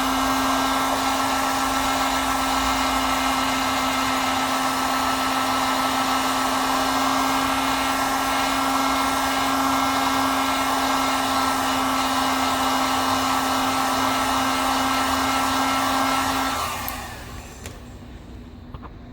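Handheld hot-air blower running steadily with a whining motor hum, heating the phone's front glass to soften the adhesive beneath it. It switches off near the end.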